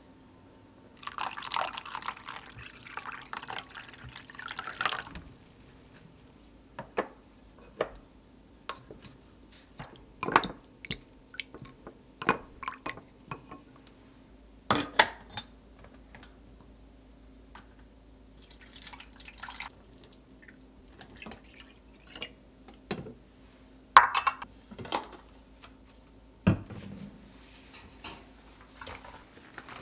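Water running for a few seconds, then scattered clinks and knocks of glass and dishes being handled.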